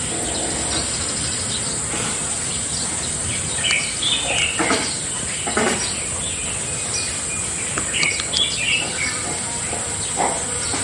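Birds chirping in short, scattered calls over a steady high-pitched buzz.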